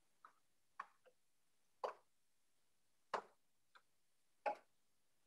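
Faint, irregular clicks and taps, roughly one a second, with a few slightly louder ones, heard over a videoconference line.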